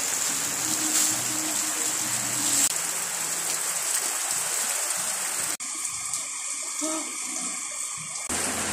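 Steady rain falling in a dense hiss. The hiss changes sharply in tone twice in the second half.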